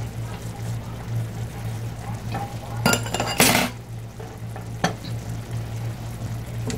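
Kitchen scissors snipping sun-dried tomatoes over a saucepan of simmering cream sauce, over a steady low hum. A short clatter of metal utensils comes about three seconds in, the loudest sound, followed by a single click near five seconds.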